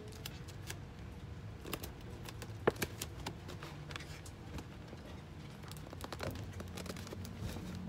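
Paper gift bag being folded shut and taped by hand: the paper crinkles and rustles in scattered small clicks, with one sharper click a little under three seconds in, over a low steady hum.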